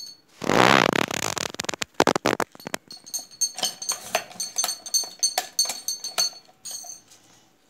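Hand-lever cigarette-tube filling machine being worked. About half a second in there is a loud scraping slide lasting about a second. Then comes a run of sharp metallic clicks and clatters with a light ring, which stops shortly before the end.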